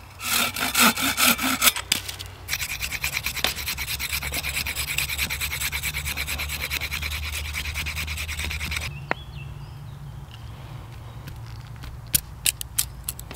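A pruning saw cuts through a green hazel stick in a few quick strokes. Then a knife blade scrapes rapidly and steadily along the stick for about six seconds, stripping the bark, and stops suddenly. Near the end come a few light clicks of the knife shaving the wood.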